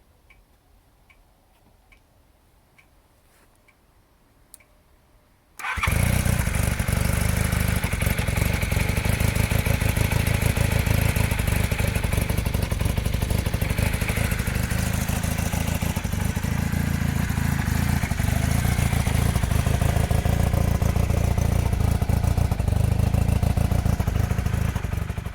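A few faint ticks, then about six seconds in the 1980 Honda CM400E's rebuilt parallel-twin engine suddenly comes in and runs steadily at a loud, even level, fading out near the end.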